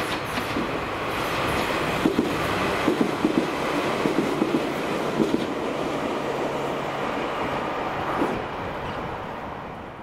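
Chichibu Railway 7500 series electric train running past, its wheels clicking over rail joints in a quick cluster in the middle and once more near the end. The running noise then fades as the train moves away.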